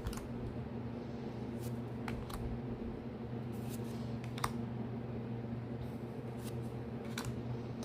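Trading cards being handled and flipped from one to the next, giving a few faint, short clicks and slides over a steady low room hum.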